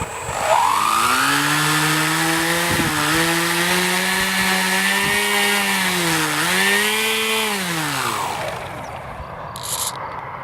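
The X-UAV One's electric motor turning the pusher propeller through a belt-driven boom-prop mechanism, a steady motor-and-prop whine. It spins up, holds speed with a brief dip about six seconds in, then spools down and fades near the end. Being belt-driven rather than geared, it runs without the gear noise of the original mechanism.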